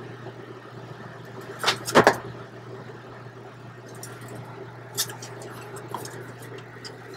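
Steady hum of a walk-in freezer's refrigeration unit, with a few knocks and scrapes of cardboard boxes being handled on wire shelving, the loudest about two seconds in.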